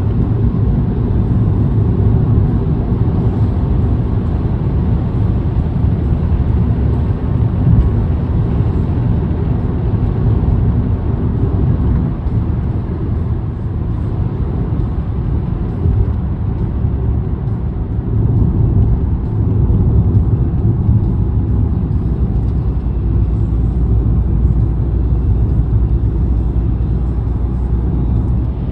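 A vehicle driving on the road: a steady low rumble of engine and tyre noise.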